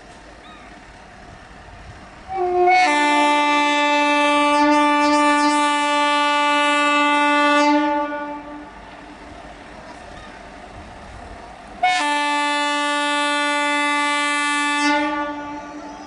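Air horn of an Indian Railways WAP-4 electric locomotive sounding two long blasts, the first about five seconds long and the second about three, asking for clearance as the train crawls along. A low rumble of the moving train runs beneath and between the blasts.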